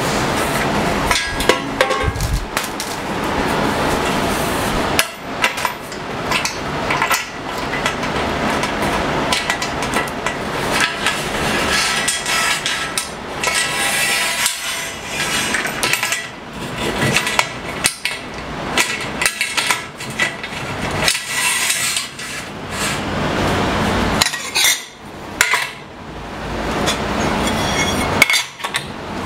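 Metal tools and aluminium fence rails being handled and set down on a table saw, clanking and clinking with many sharp knocks.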